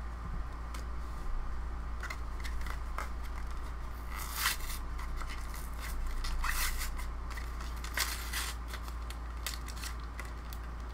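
Yu-Gi-Oh! foil booster pack crinkling and scraping as hands work it open, with sharper tearing rasps about four and a half, six and a half and eight seconds in.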